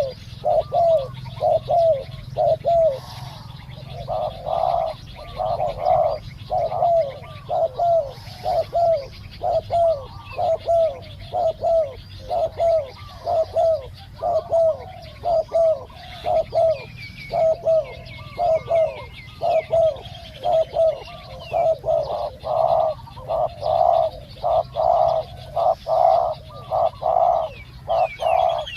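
Spotted doves cooing over and over in a steady run of low, falling coos: the territorial calling that decoy trapping uses to draw a wild male in. Fainter high chirps from another bird come in about midway.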